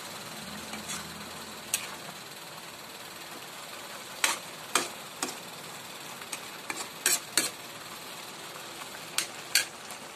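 Metal ladle scraping and clinking against a metal pan as it stirs banana blossom simmering in coconut milk, with several sharp clinks over a steady simmering hiss.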